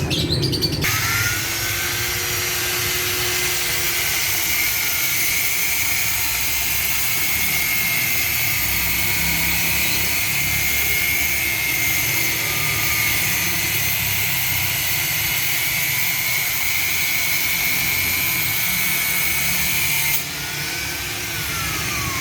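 Angle grinder cutting metal, a steady high grinding noise. It spins up about a second in, cuts without a break, then is switched off near the end and winds down.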